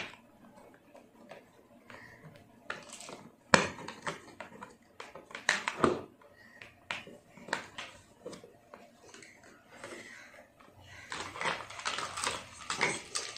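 Hard plastic parts of a toy kitchen set clicking and knocking as they are handled and fitted into the plastic case, in scattered sharp clacks with quieter gaps between.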